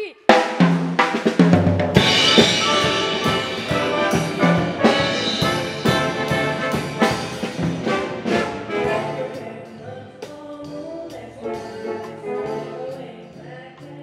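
Jazz big band playing: trumpets and saxophones over a drum kit with snare, bass drum and cymbal hits. It comes in loud about two seconds in and grows softer over the second half.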